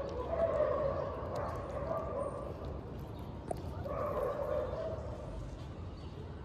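A tabby cat crunching dry kibble close by, with short crisp crunches. Over it come two long, drawn-out animal cries: one just after the start and one about four seconds in.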